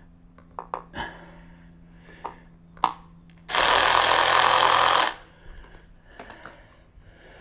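Handheld power driver run in one steady burst of about a second and a half, tightening a bolt on the e-bike's front fender mount. A few light clicks and taps from parts being handled come before it.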